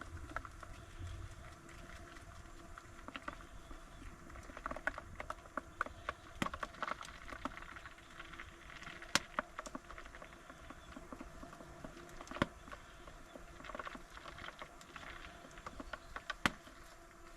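Irregular light pattering and sharp ticks of water drips falling after heavy rain, with a few louder taps about six, nine, twelve and sixteen seconds in.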